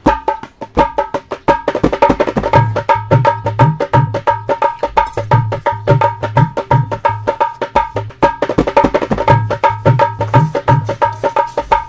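Background music with a fast, steady percussion rhythm over a repeating bass line.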